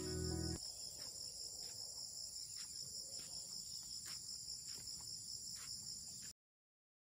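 Steady, high-pitched chorus of insects, crickets or similar, with a fast pulsing shrill and a few faint taps under it. A bit of background music ends about half a second in, and all sound cuts off abruptly near the end.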